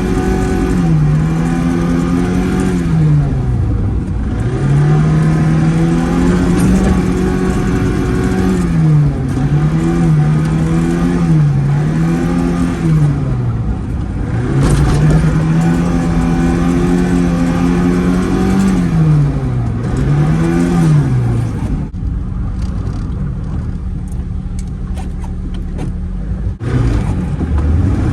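Zhiguli (classic Lada) engine revving hard while the car drifts on snow: the engine note repeatedly climbs, holds high for a moment and drops again. Several seconds before the end it settles into a steady held note, then dips once more.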